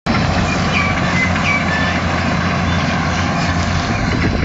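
Tractor engine and round baler running steadily while baling straw, a continuous low drone.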